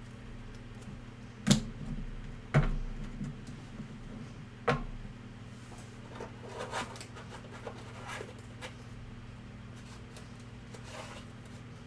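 Cardboard card boxes and packs handled on a tabletop: three sharp knocks about a second into the sound, then a second later, then two seconds after that. Light rustling and small clicks follow over a steady low electrical hum.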